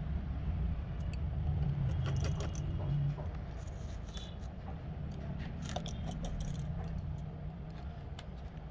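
Scattered small metallic clicks and taps of hand tools and small parts being handled, over a steady low hum.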